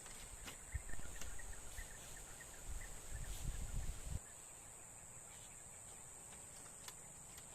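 Steady high-pitched drone of insects, with low rumbling on the microphone in the first half that stops suddenly about four seconds in, and a few scattered clicks.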